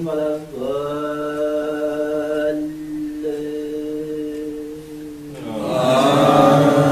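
A male voice chants Quran recitation in long, drawn-out held notes. About five and a half seconds in, many men's voices join in a louder unison response.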